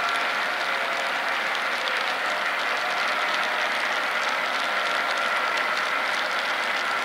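Empty model-railroad coal hoppers rolling along the track: a steady rolling rattle made of many small clicks of wheels on rail, with a faint steady whine underneath.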